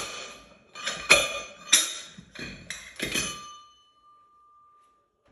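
Heavy steel piston of a down-the-hole drilling hammer bumped repeatedly, about six metallic clanks in three and a half seconds, driving the inner cylinder down through a ring-compressing tool to seat it. After the last strike a single steel ringing tone hangs on and fades.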